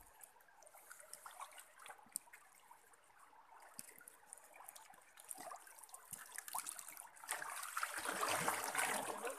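Shallow, muddy stream water trickling and sloshing as hands dig through wet mud, with scattered small clicks and crackles. The water sound grows louder about seven seconds in.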